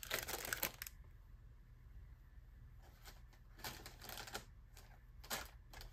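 Craft supplies and their paper and plastic packaging rustling as they are handled. It comes in short bursts: about a second of it at the start, then a few briefer ones in the middle and near the end.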